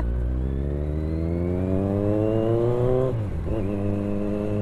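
Kawasaki Z900's inline-four engine accelerating under throttle, its pitch rising steadily for about three seconds. It then dips sharply on an upshift and settles to a steady, lower pitch.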